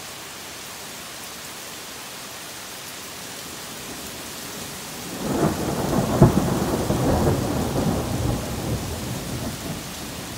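Steady rain falling, then about five seconds in a really loud thunderclap: a rumble with one sharp crack in it that dies away over about four seconds.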